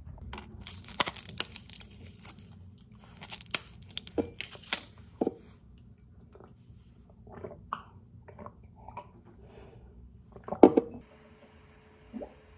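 A person chewing crunchy food: a run of sharp, crackly crunches over the first five seconds, then softer chewing, with one louder crunch near the end.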